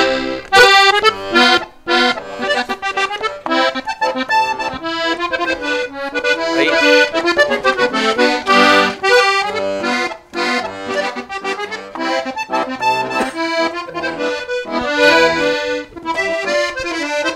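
Solo accordion playing a polka: a quick melody over chords, with notes changing rapidly.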